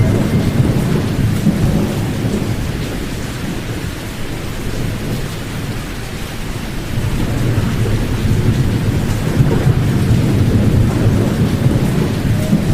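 Sleep-aid noise with the high frequencies cut, pink noise that sounds like heavy rain: a steady rushing hiss weighted toward the low end. It swells louder at the start and again in the second half, with a softer stretch in between.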